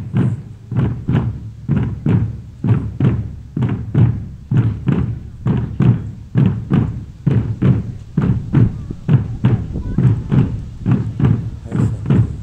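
A drum group of large strapped bass drums playing a steady rhythm of deep, booming strikes, about two to three beats a second.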